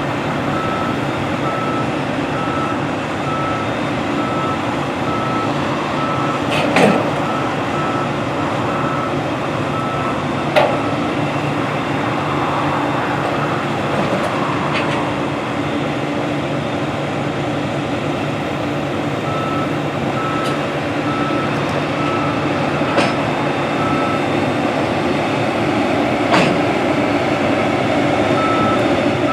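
Large combine engine running steadily at idle, with a backup alarm beeping evenly in long stretches as the machinery reverses. A few sharp metallic clanks come through, about five in all.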